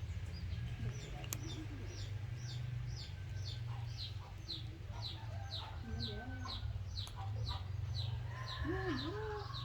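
Chickens: a steady run of short, high, falling peeps about twice a second, with a few low clucking calls in the second half, over a constant low hum.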